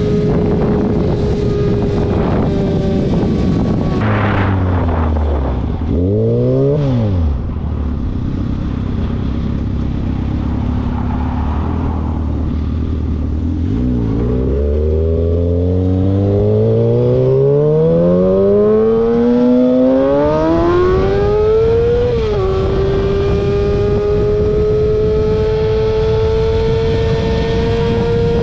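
Car engine revving: a short blip about six seconds in, then a long climb in pitch over some eight seconds. After a sudden dip, a high steady note is held until it drops near the end.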